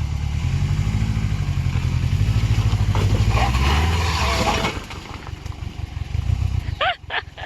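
A Subaru Outback's engine revving hard under load as the car works up a steep off-road climb, then easing off suddenly about four and a half seconds in. Near the end there are two short high squeaks.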